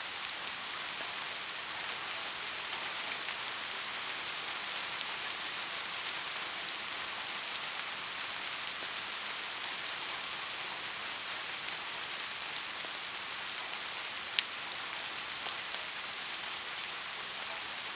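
Steady rain falling, a dense even hiss with scattered drop ticks and one sharper drop about three-quarters of the way through.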